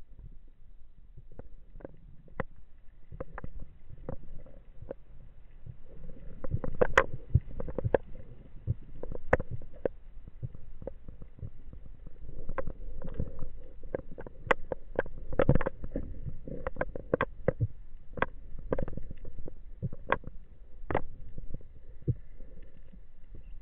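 Muffled underwater sound picked up through an action camera's waterproof housing: a low rumble of moving water with irregular sharp clicks and knocks, coming more often and louder from about six seconds in.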